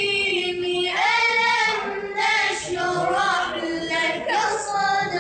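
A child's voice chanting Qur'an recitation in long, melodic drawn-out phrases, the pitch bending and ornamenting through each held note.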